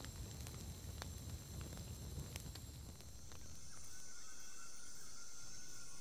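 Crackling of a smoky open fire: scattered sharp snaps over a low rumble. About three seconds in this gives way to a steady high-pitched drone of insects.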